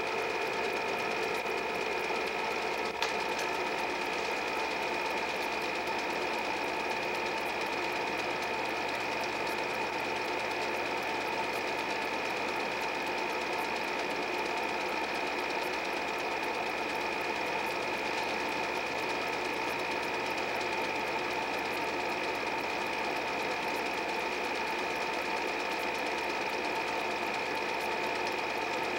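8 mm film projector running: a steady mechanical whir with a fine, rapid clatter from the film transport and a constant high whine, with one small click about three seconds in.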